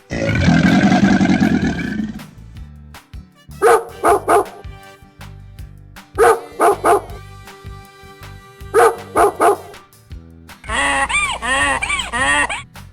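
Dog barking in quick bursts of three, three times over, after a loud rough animal call in the first two seconds. Near the end, a fast run of honking calls begins, typical of a goose. Background music plays throughout.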